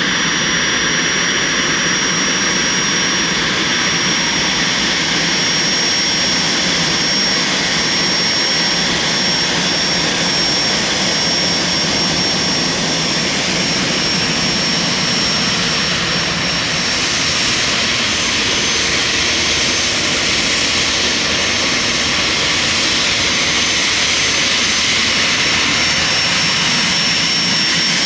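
Bombardier Challenger 350 business jet's twin Honeywell HTF7350 turbofans running, a constant high whine over a loud, steady jet rush. The hiss grows brighter about two-thirds of the way through.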